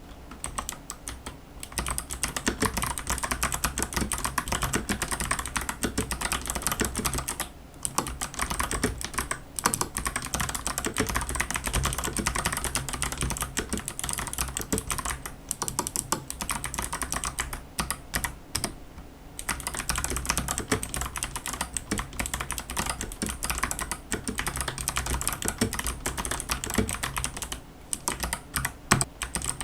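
Typing on a Ninja87 PRO mechanical keyboard with unlubricated Kailh Box White clicky switches and XDA keycaps. It is a dense, fast stream of sharp clicks, broken by a few short pauses.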